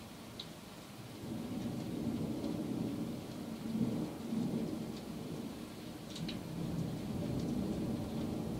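Rolling thunder that swells about a second in, peaks near four seconds and keeps rumbling, with a few sharp ticks scattered through it.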